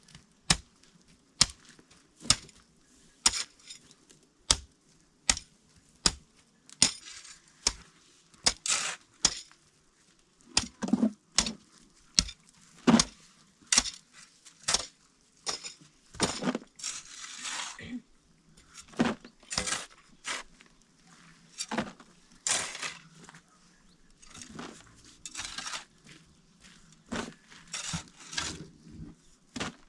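Repeated sharp chopping or striking blows, about one a second at first, then coming irregularly from about eight seconds in, mixed with crunching and scraping between the strikes.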